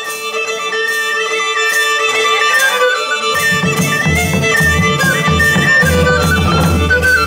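Traditional folk dance music in medieval style: a steady held drone under a moving melody. Drums and a low pulsing beat come in about three seconds in.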